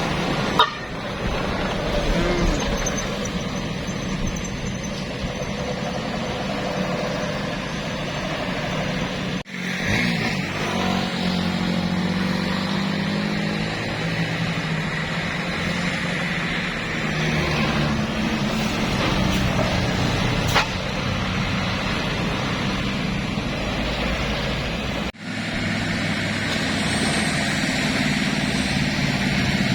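Heavy diesel road vehicles, tour buses and trucks, driving past with their engines running under load. An engine's pitch climbs about ten seconds in. The sound breaks off abruptly three times where separate clips are joined.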